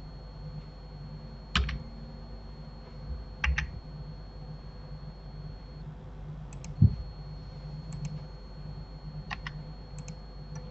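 Computer mouse and keyboard clicks: scattered single and double clicks spread a second or two apart, over a low steady hum. The loudest sound is a short low thump about seven seconds in.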